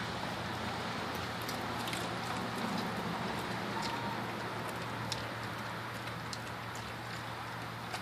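A German Shepherd chewing a raw chicken leg: irregular wet clicks and crunches, every second or so, over a steady low background hum.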